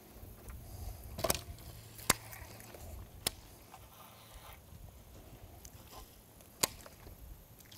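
A bait being cast with a baitcasting rod: a swish of the rod and a few sharp clicks and knocks, spread out with quiet gaps between them.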